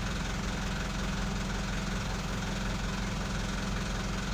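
Refrigerated truck's engine idling with the Topre cooling unit switched on: a steady low hum with a fast, even pulse.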